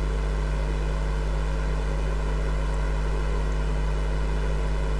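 Steady electrical hum over a hiss, unchanging throughout.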